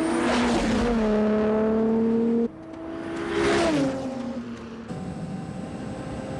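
Toyota Supra sports car speeding past at high revs, its engine note dropping in pitch as it passes. A second fast pass with the same falling pitch comes a few seconds later, followed by a steadier, lower engine drone.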